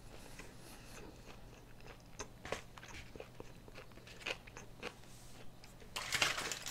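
A person chewing a mouthful of street taco close to the microphone: soft, irregular wet clicks and smacks. Near the end comes a brief, louder rustling burst as the food on the plate is handled.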